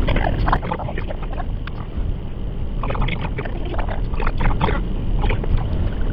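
Typhoon wind rumbling and buffeting on the microphone, with scattered short rustling and tapping sounds over it.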